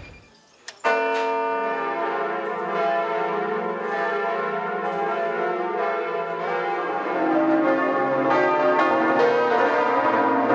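The bells of Notre-Dame de Paris cathedral ringing together, with many overlapping bell tones. They start abruptly about a second in, and deeper bells join in around seven seconds in.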